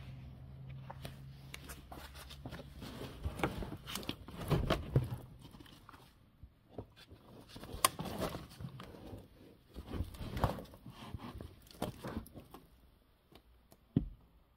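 Handling noise from a handheld camera moved about a car body: irregular rustling and scuffing with scattered clicks and knocks, and one sharp knock near the end. A low steady hum is there only at the start.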